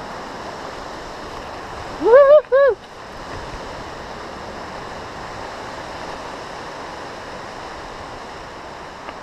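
A rider's whooping "woo-hoo-hoo" cheer about two seconds in, three quick rising-and-falling yells, over a steady rushing noise that carries on through the rest.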